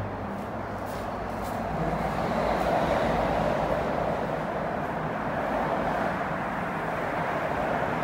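Steady rumble of heavy motorway traffic passing below, heard from inside an enclosed pedestrian overpass, growing a little louder about two seconds in.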